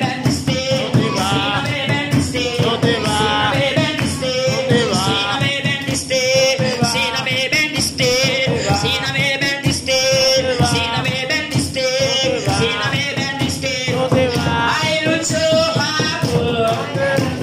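Lively church worship music: voices singing a melody over a busy percussion beat.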